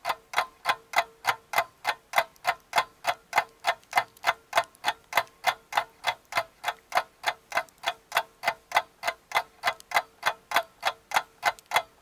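Ticking clock sound effect: even ticks at about three a second over a faint steady hum.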